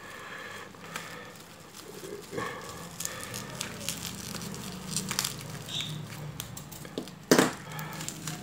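Bubble wrap and plastic packing tape crinkling and tearing as a parcel is cut open with a pocketknife and pulled apart by hand, with scattered clicks and one sharp snap about seven seconds in.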